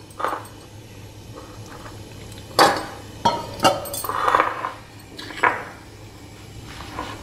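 A metal spoon clinking and scraping against a glass bowl as custard powder is stirred into a little milk, with a few sharp knocks of dishes, the loudest about two and a half seconds in.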